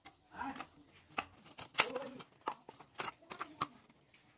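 Cut green plastic bottle crackling as hands bend and twist it, in a string of sharp clicks and snaps.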